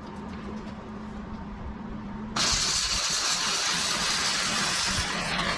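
A welding arc is struck about two seconds in and held as a steady, loud hiss for the rest of the stretch. Before it there is only a low hum.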